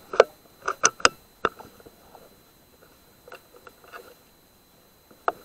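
Irregular sharp clicks and light knocks: a quick cluster of about five in the first second and a half, a few fainter ones around three to four seconds in, and one more sharp click near the end.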